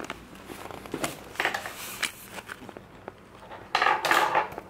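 Plastic play-dough moulds and tools clicking and clattering on a tabletop, with a louder burst of noise about four seconds in.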